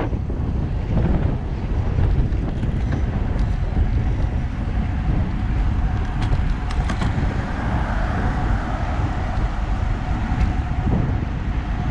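Wind buffeting the microphone of a camera on a moving road bicycle, with steady rolling road noise. A few sharp clicks come about six to seven seconds in.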